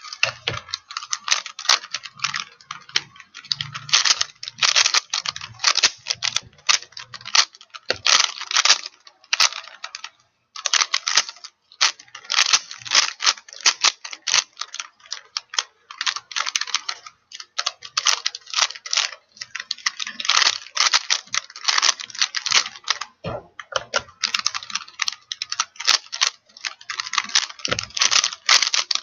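Plastic Rubik's Cube being turned fast by hand during a timed solve: a dense, rapid clatter of clicking layer turns, broken by a couple of brief pauses about ten and twelve seconds in.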